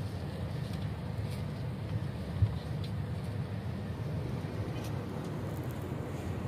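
Intercity coach's engine rumbling steadily, heard from inside the passenger cabin, with a single sharp knock about two and a half seconds in.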